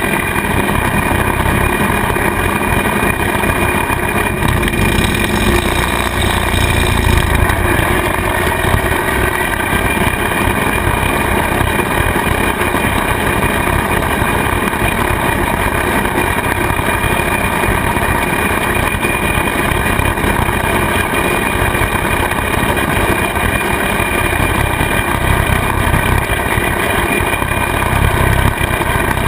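Kubota tractor's diesel engine running steadily under load, driving a rear-mounted bush hog rotary cutter as it mows pasture grass.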